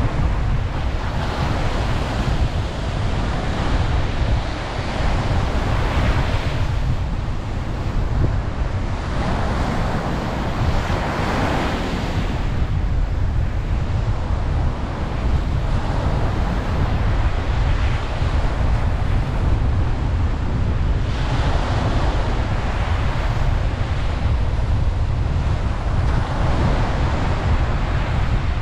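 Ocean waves breaking and washing up a beach, the surf swelling and fading every few seconds over a steady low rumble.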